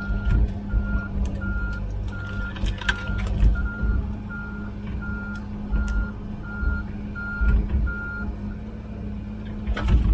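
Komatsu PC16 mini excavator with its diesel engine running and its travel alarm beeping about every 0.7 seconds; the beeping stops about eight seconds in. Irregular low thumps sound throughout.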